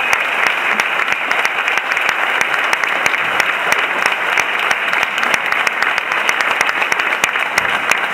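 An audience applauding, dense steady clapping that goes on without a break.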